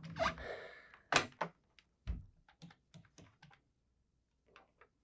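Desk telephone being handled: a few thunks as the handset is picked up, then a quick run of small clicks as its push buttons are pressed to dial, and a couple more clicks near the end.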